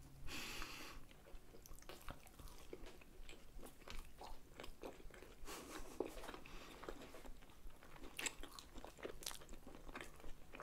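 Close-miked chewing of soft rolled pancakes filled with cottage cheese and sour cream: faint, irregular wet mouth clicks and smacks from two people eating. A brief soft hiss in the first second.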